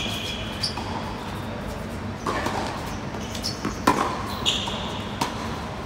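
Tennis rally on a hard court: rackets strike the ball a few times, the sharpest hit about four seconds in, with sneakers squeaking on the court surface between shots.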